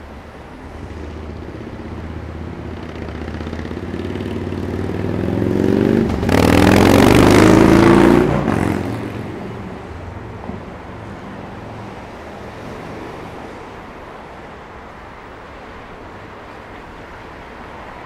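Street traffic at an intersection: a vehicle's engine grows louder and accelerates past, its pitch rising, loudest from about six to eight seconds in. It then fades back into a steady hum of passing cars.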